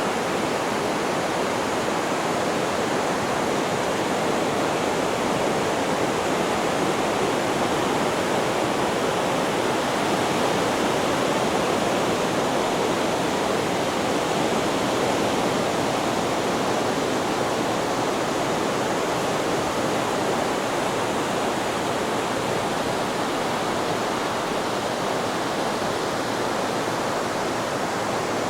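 Steady white-noise sleep track: an even rushing hiss that holds the same level throughout, with no rise and fall of breaking waves.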